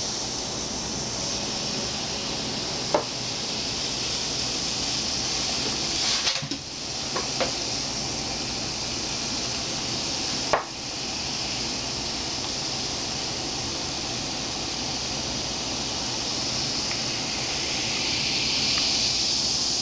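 A fizzing reaction of baking powder with poured liquid: a steady hiss that swells a little near the end. Four sharp clinks of a small glass against the cup or table, a few seconds apart.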